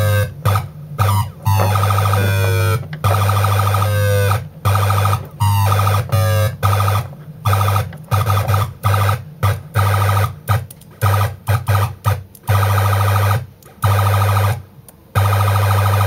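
Circuit-bent UM3561 sound-effect chip sounding its electronic siren and alarm tones over a loud low hum, with sweeping pitch glides in the first few seconds. The sound cuts out and back in many times, which fits its wiring being handled.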